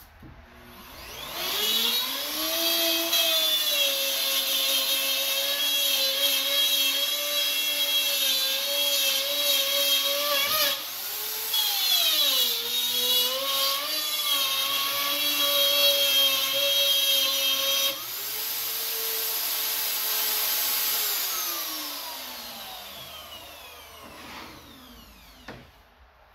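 Plunge router with a 1/4-inch straight bit spinning up and cutting a curved line through plywood. Its whine dips briefly under load about halfway through the cut. Near the end the cutting noise stops and the motor winds down to a stop.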